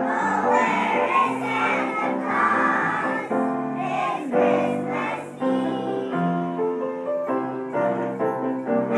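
A kindergarten class singing a Christmas song together as a choir, with musical accompaniment, continuing without a break.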